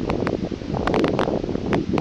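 Strong wind buffeting the microphone, a loud, uneven rumble, with scattered sharp ticks through it.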